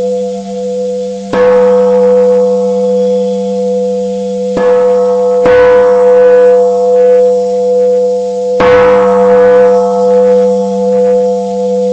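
Large Buddhist temple bell struck four times, each stroke ringing on and overlapping the next, marking the close of the chanting service.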